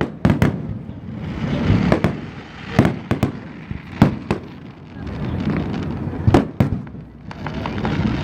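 Fireworks going off: about ten sharp bangs, some in quick pairs, with a hiss between them.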